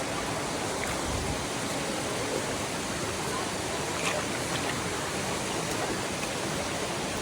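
Running water, a steady, even rush of flowing water.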